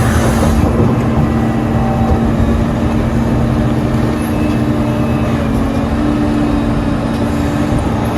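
Heavy diesel earthmoving machinery at work, excavators and dump trucks, running with a loud, steady engine drone.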